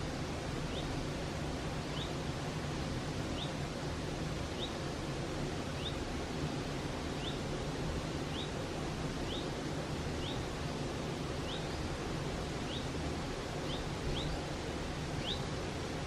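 Mountain stream flowing with a steady rushing noise. Over it, a bird repeats a short, high, rising call about once a second.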